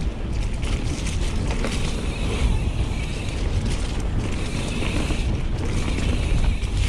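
Full-suspension mountain bike rolling fast down a dirt trail over dry fallen leaves: a steady rush of tyre and trail noise with frame rattle and small knocks, under heavy wind rumble on the action camera's microphone.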